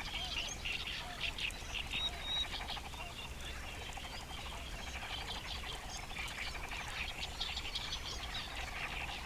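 Wetland ambience: a steady chorus of frogs calling, with many short bird chirps over it.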